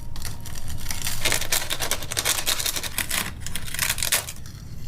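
Papery outer envelope of a wasp nest crackling and tearing as its layers are pulled apart by hand, a dense run of irregular dry crackles.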